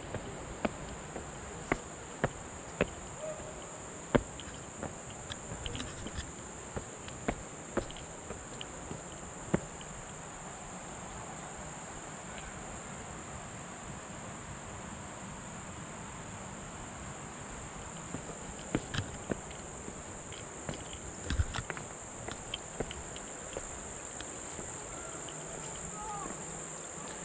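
A steady, high-pitched drone of insects singing in the vegetation, with the hiker's footsteps tapping and scuffing on the stone steps as sharp clicks, frequent in the first third and again about two-thirds through.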